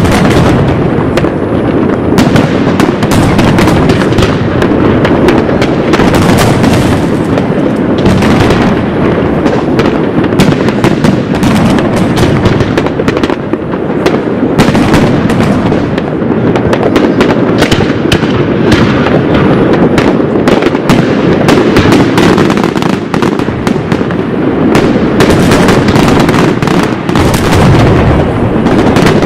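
Many fireworks going off at once, a dense, unbroken barrage of overlapping bangs and crackling.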